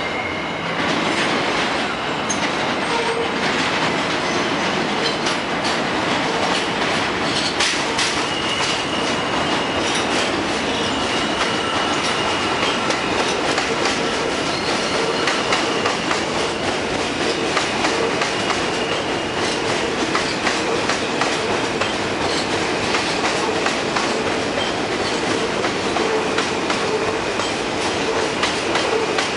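R160A-1 subway train running on the rails, its wheels clacking over rail joints, with a high, steady wheel squeal through the middle of the stretch.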